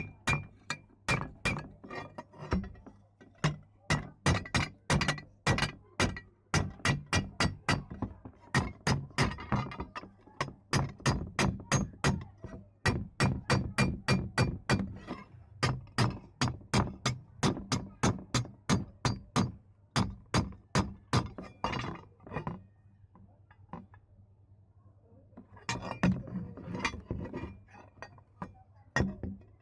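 Repeated hammer blows on metal, about two to three strikes a second, with a short pause about three quarters of the way through.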